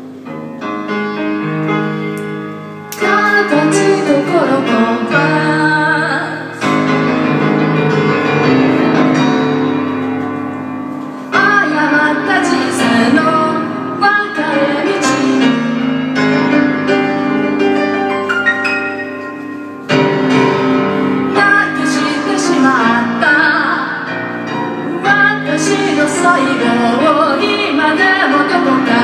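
A woman singing to her own grand piano accompaniment, her voice carrying in phrases over sustained piano chords. The playing swells louder with newly struck chords about three seconds in, and again near the middle and two-thirds of the way through.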